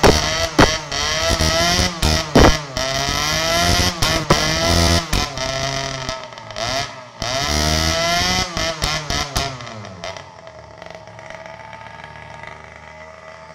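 Mini bike engine revved up and down again and again, with sharp pops from the exhaust as it backfires flames. About ten seconds in it drops back to a quiet low idle.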